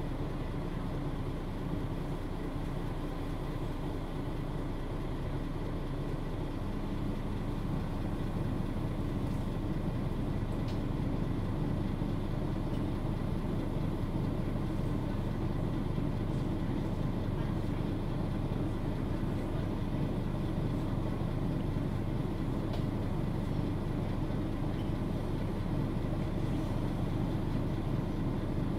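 Steady running noise heard inside a Mercedes-Benz O530 Citaro G Facelift articulated city bus on the move: diesel engine drone and road rumble with a steady hum. It gets a little louder about eight to twelve seconds in.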